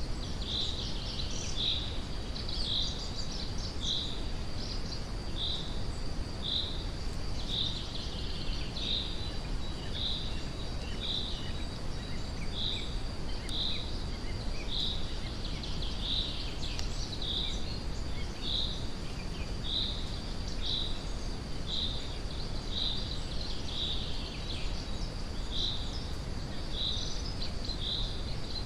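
Steady brown noise with a bird repeating a short high chirp about once a second, over a thin, steady high-pitched trill like an insect's.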